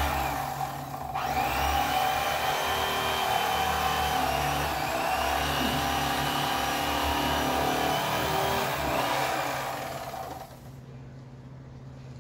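Electric fillet knife running as its blades cut through a crappie, with a brief drop about a second in; the motor stops a couple of seconds before the end.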